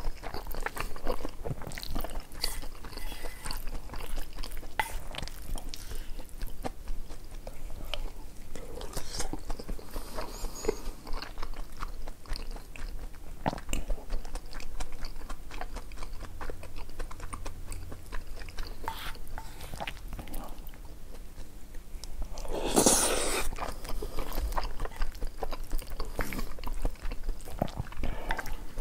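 A person chewing and biting food with small wet clicks and crunches. About two-thirds of the way through there is one louder, longer noisy sound.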